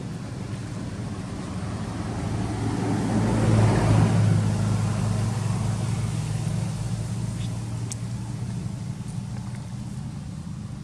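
A motor vehicle's engine hum passing by, growing louder to a peak about four seconds in and then slowly fading.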